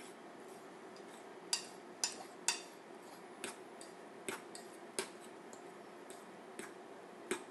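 A fork clinking irregularly against a bowl while stirring and fluffing cooked rice, with a few louder clicks about one and a half to two and a half seconds in and again near the end.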